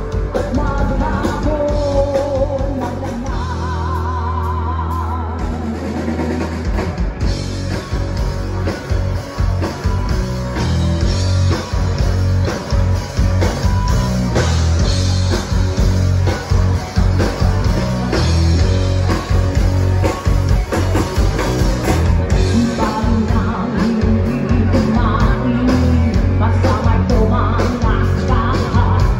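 Live rock band: a woman singing into a microphone over electric guitar and a drum kit.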